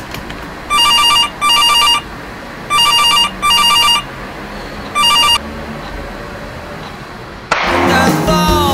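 Telephone ringing: two double rings and then a single ring, each a warbling trill. About 7.5 seconds in, guitar-led music starts abruptly and is the loudest sound.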